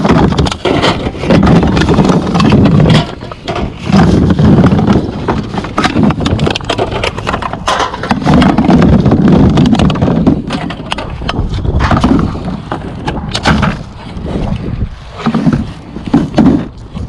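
Wind buffeting the microphone in gusts, over a stream of sharp clicks and knocks.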